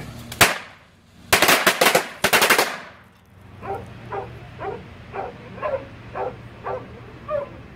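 A pack of firecrackers going off: one sharp bang, then a rapid string of bangs for about a second and a half. After the bangs, a dog barks over and over, about twice a second.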